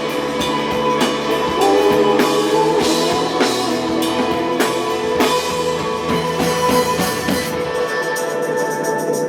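Live rock band playing an instrumental passage with drum kit and electric guitars, no singing. About eight seconds in, the drums and bass drop away.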